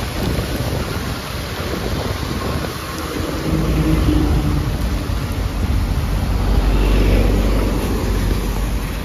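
A motor vehicle's engine rumble on a wet road over a steady hiss. The rumble swells from about three seconds in, is loudest around seven seconds, then eases off.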